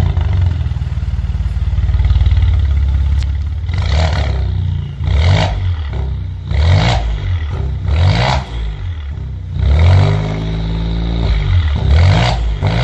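Maserati Ghibli S twin-turbo V6 heard at the tailpipes through a resonator-delete exhaust with its variable exhaust valves open. It runs steadily for about four seconds, then is revved in a series of quick throttle blips, about six, the one around ten seconds in held a little longer before the revs fall away.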